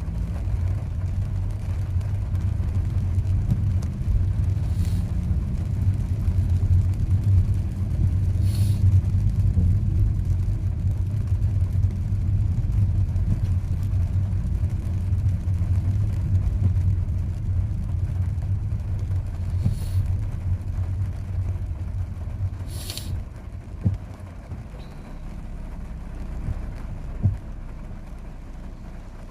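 Steady low road and engine rumble of a car driving on the highway, heard from inside the cabin. It eases off gradually toward the end. A few brief hissing swells come through, and two short knocks sound near the end.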